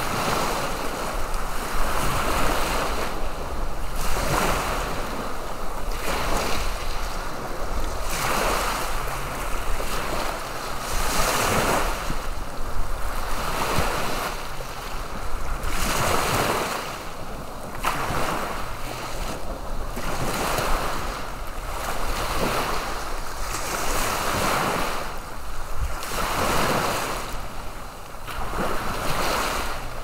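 Ocean waves breaking and washing up onto a shelly beach, the surf swelling and easing with a new surge every two seconds or so, over a steady low rumble of wind.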